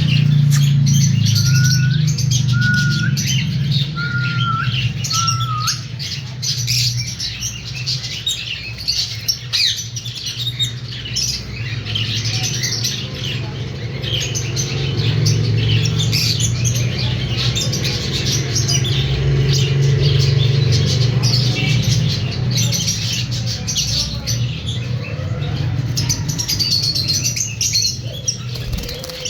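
Lutino masked lovebirds chirping and squawking in a busy, continuous chatter of quick high calls, with four short whistled notes in the first few seconds. A steady low hum runs underneath.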